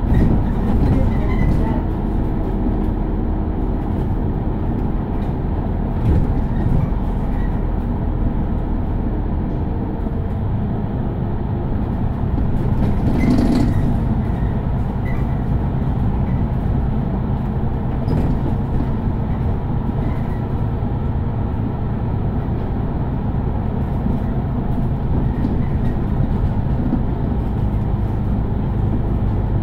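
Mercedes-Benz Citaro city bus driving, heard from inside: a steady low rumble of engine and road noise. A brief louder noise comes about thirteen seconds in.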